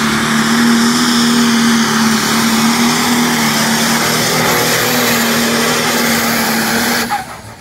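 Diesel pulling tractor of about 2000 horsepower running flat out under full load as it drags the brake sled down the track: a loud, steady engine noise with a steady drone. It stops suddenly near the end.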